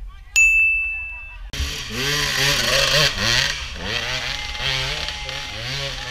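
A short, steady high-pitched tone about a second long. A dirt bike engine then comes in about a second and a half in, revving up and down under load as the bike climbs a steep, muddy hill.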